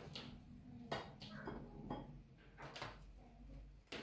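Light clicks and knocks of whole eggs being taken from a plastic basket and set down against each other in a ceramic bowl, a handful of small taps spread over a few seconds.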